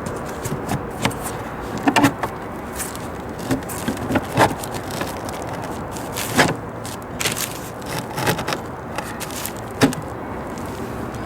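Irregular light knocks and scrapes of a recessed trolling motor pan being handled and worked into the cut-out in the boat's deck, over a steady background hiss.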